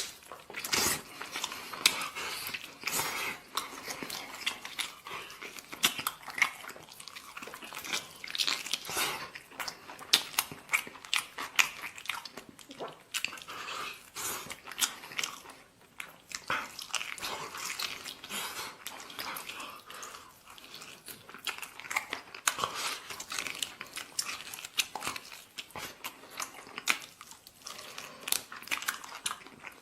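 Close-miked eating: a person chewing and smacking on stew and rice, with many irregular wet clicks and smacks.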